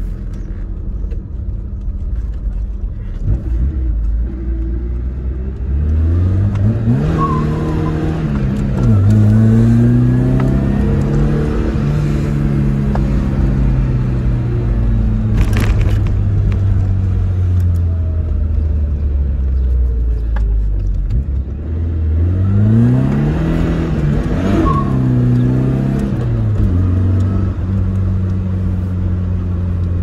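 Tofaş Doğan SLX's four-cylinder engine heard from inside the cabin, revving up hard twice, about seven and twenty-two seconds in, its pitch climbing and then dropping back. Between the revs it runs steadily.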